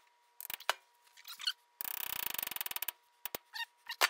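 A hatchet pounding metal wedges into the top of an axe handle: scattered knocks, then a fast run of sharp strikes about two seconds in. Short high squeaky chirps come in between.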